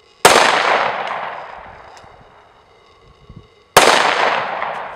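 Two shots from a 9mm Glock 19 pistol, about three and a half seconds apart, each echoing and dying away over a second or more.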